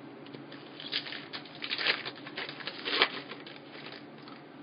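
Football trading cards being handled and slid across one another: a run of quick rustles and flicks, loudest around the middle, then settling down.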